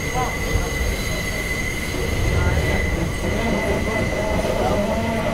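R68-series New York City subway train running on the D line: a heavy steady rumble with a thin, steady wheel squeal over the first few seconds, and a lower whine coming in about three seconds in.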